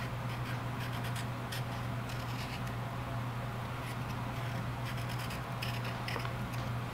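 Small kitchen knife peeling the skin off a chayote (chocho) squash in hand: soft, short scraping and slicing strokes, repeated irregularly, over a steady low hum.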